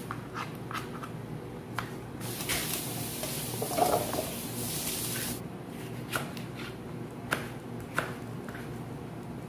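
Kitchen knife chopping cucumber and then tomato on a plastic cutting board: scattered sharp taps at the start and again in the last few seconds. About two seconds in there are about three seconds of hissing scrape, with a short clatter as the chopped cucumber goes into a stainless steel bowl. A low steady hum runs underneath.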